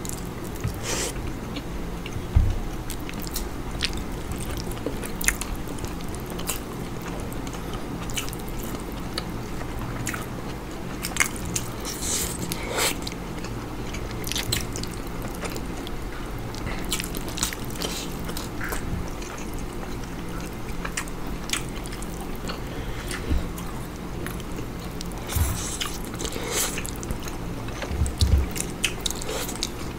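Two people eating close to the microphone: chewing, biting and smacking, with many scattered sharp wet mouth clicks over a steady low hum.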